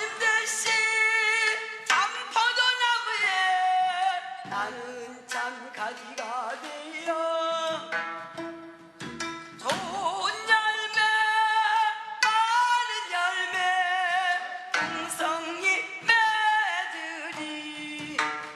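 Background music: a Korean Christian praise song, a vibrato melody line over light percussion.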